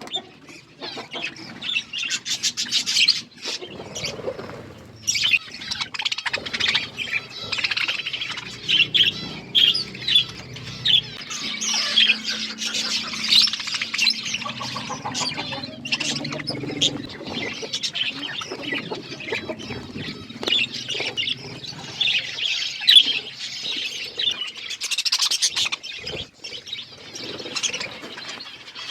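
A flock of budgerigars chirping and chattering, with many short, high calls overlapping continuously.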